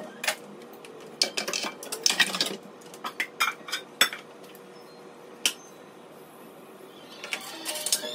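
Kitchen dishes, pots and cutlery clinking and clattering as they are handled and put down, a string of separate knocks and clinks that is busiest in the first few seconds and again near the end.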